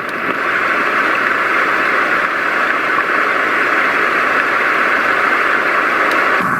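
Roffie white noise machine playing its rain track, a steady hiss like rain falling on leaves, heard through the machine's small speaker. Just before the end it cuts over abruptly to a different, lower-pitched noise track.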